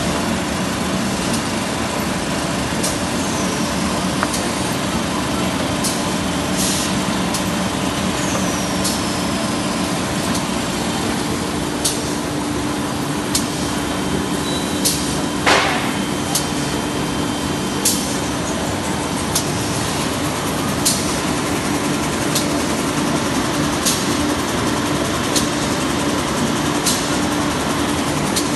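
Automatic toilet-paper packaging machine running: a steady hum of motors and conveyors, with a sharp clack about every second and a half as the machine cycles.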